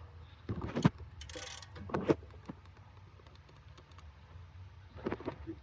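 Scattered sharp clicks and knocks of hand tools on metal parts, with a brief hiss about a second and a half in.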